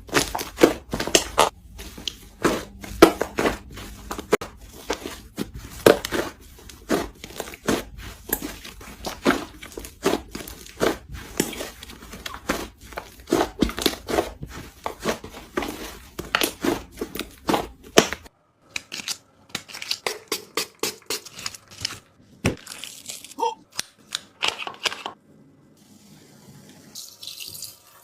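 Hands squeezing and stretching slime: a run of sticky crackles and pops, about two to three a second, that thins out about two-thirds of the way through, with a soft hiss near the end.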